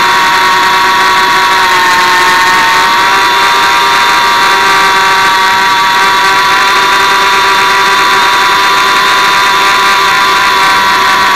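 Hubsan X4 mini quadcopter's four coreless motors and propellers whining steadily in a hover, the pitch wavering slightly as the motors adjust. Heard loud and close from the camera mounted on the drone.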